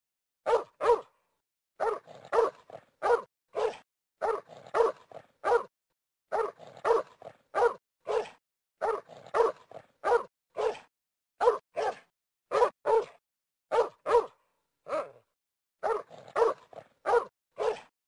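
A dog barking over and over: short barks in quick runs of two or three, with brief pauses between the runs.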